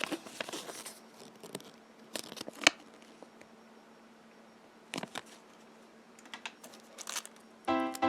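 Scattered small clicks, taps and crinkles of hands handling a surprise egg and its small plastic toy pieces, with one sharper click about two and a half seconds in. Background music comes back in near the end.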